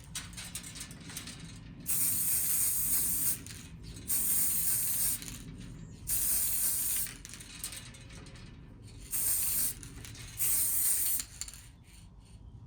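Aerosol spray can being sprayed at the motorcycle forks in five short hissing bursts of about a second each, with small handling clicks in the pauses between.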